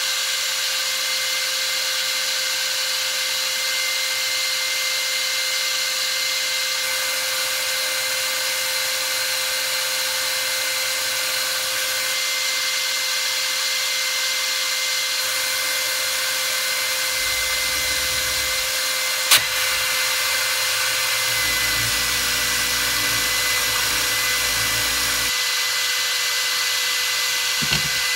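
Cordless drill clamped in a vise, its trigger held on by a tie wrap, running steadily at speed with a cloth polishing mop on the chuck, used to polish an alloy motorcycle engine case. A low rumble joins in for a few seconds past the middle, and there is one sharp click.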